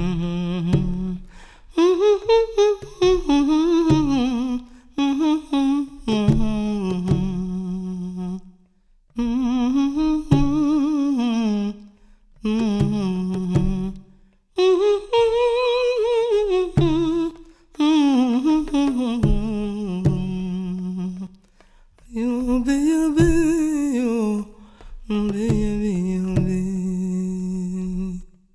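A man humming a wordless melody in rising-and-falling phrases, broken by short pauses, over plucked notes on an acoustic bass guitar.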